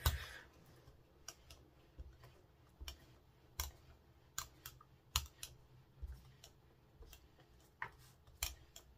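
Rubber brayer being rolled back and forth over an inked gel press plate and dabbed on an ink pad: irregular sharp clicks and ticks, one or two a second.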